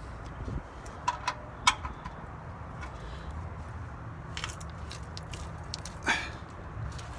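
Socket wrench tightening the oil pan drain plug: a few scattered clicks and taps, and a louder scraping noise about six seconds in.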